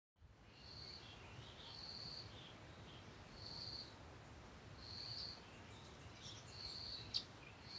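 Faint outdoor nature sounds: a high buzzy call about half a second long, repeated every second and a half or so, with soft chirps between and a sharp click about seven seconds in.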